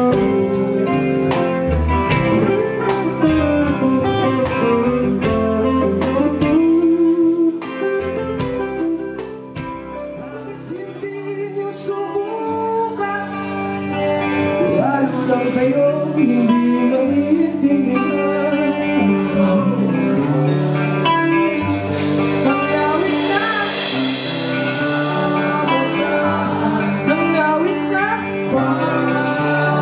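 Live band playing electric guitars, bass and drum kit, with vocals. The drums stop about seven seconds in and the music drops to quieter guitar, then builds back up to the full band with a cymbal swell near the end.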